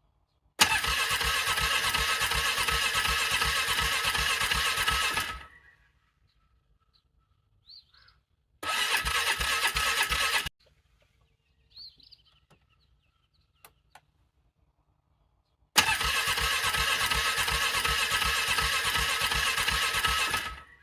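Cold ATV engine being cranked over by its electric starter in three tries: about five seconds, then two, then five. The cranking is evenly pulsing and the engine does not catch, a hard cold start in freezing weather.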